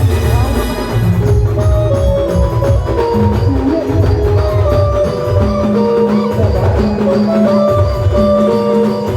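Live band music for an Adivasi song: a melody of held notes over a steady, repeating drum beat.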